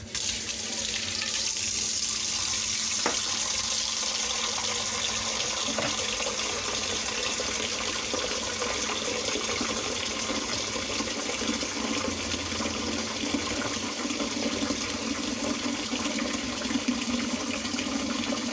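Water running steadily from a kitchen tap into a sink, turned on abruptly at the start.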